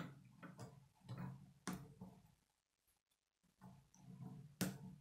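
Plastic K'nex pieces being handled and snapped together: faint rattling and rubbing, with a sharp click about a second and a half in and a louder one near the end.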